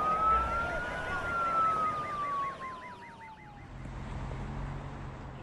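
Police siren: a slow wail that rises for about a second and then falls away, with a fast warbling yelp on top, dying out a little over halfway through.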